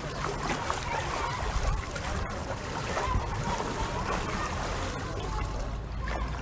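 Open-air swimming pool ambience: water splashing and trickling steadily, with indistinct voices of people around the pool mixed in.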